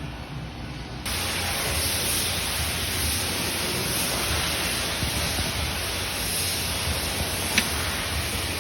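Steady hiss like static or spray that starts abruptly about a second in, with a single click near the end.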